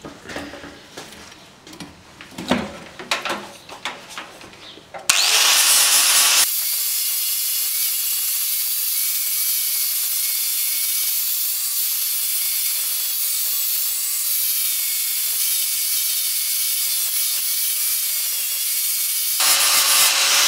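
Angle grinder grinding a metal part clamped in a vise. It comes in loud about five seconds in, then runs as a steady high hiss and whine of the disc on the metal, and stops right at the end. Before it, a few light knocks and clicks.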